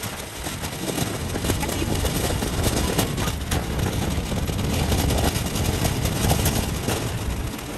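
Steady low rumble of a moving vehicle, with a short dip near the end.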